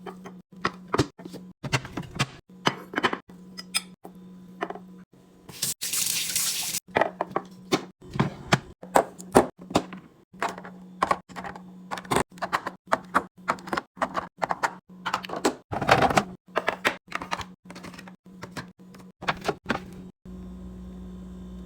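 Quick succession of knocks, taps and clinks as food containers and packages are handled and set down while a fridge is stocked, with a brief rush of water about six seconds in.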